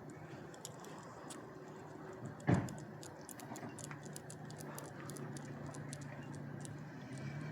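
Light, irregular clicking of a dog's claws on a hard road surface as it walks, with one loud thump about two and a half seconds in and a low steady hum coming in about four seconds in.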